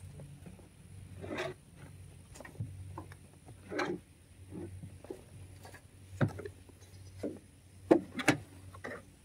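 Shovels scraping and digging into a load of compost in a pickup truck bed and tipping it into a wheelbarrow, in irregular strokes about every one to two seconds, with the sharpest pair of scrapes near the end.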